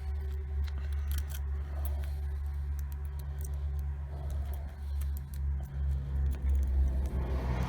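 Small, irregular metallic clicks and scraping from a rake pick being worked in and out of a cheap five-pin padlock held under a tension wrench, over a steady low hum.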